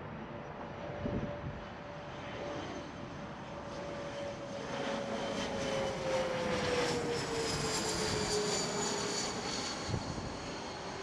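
Bombardier CRJ regional jet's twin rear-mounted GE CF34 turbofans on final approach, passing low overhead. The jet noise swells to its loudest about seven seconds in. A high whine and a lower tone both slide down in pitch as it passes, and then the sound eases as the jet moves away.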